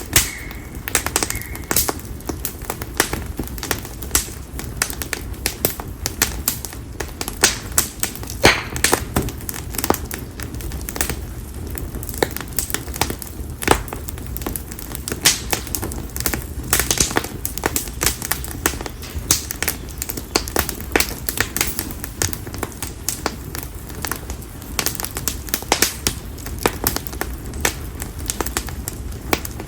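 Konara oak firewood burning in an open bonfire, crackling and popping with sharp, irregular snaps, several a second, over a low steady rush of the flames.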